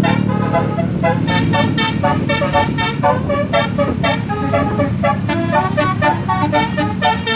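Bus basuri telolet horn playing a fast, repeating melody of short, shifting notes, over the bus engine running.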